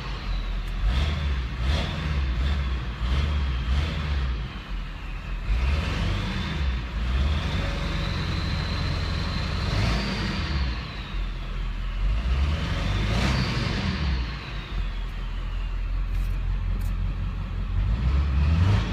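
Turbocharger whistle on a 2001 Ford 7.3L Power Stroke turbodiesel V8: a high whistle that climbs and drops several times with engine speed over the engine running low underneath.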